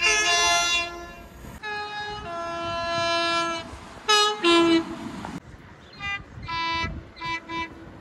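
Train horn sounding a series of blasts that change between a high and a low note, the last few shorter and quieter.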